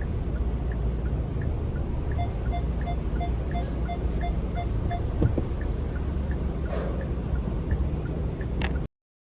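Inside a car reversing into a parking space: a steady low engine and cabin rumble under a parking warning beeping evenly about three times a second, which stops about five seconds in. A couple of sharp clicks come near the end, then the sound cuts off abruptly.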